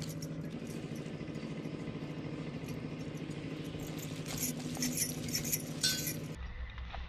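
A steady motor hum with light clicks and rattles over it. About six seconds in it cuts abruptly to a different, lower pulsing hum.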